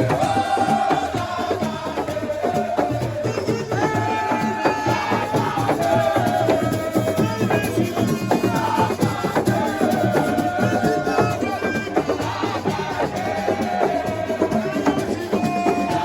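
Folk music with dense, fast hand percussion and a held, gliding melodic line over it.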